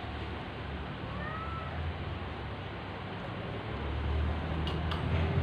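A domestic cat meows once, briefly, about a second in, a thin short call. A steady low hum runs underneath and grows louder near the end.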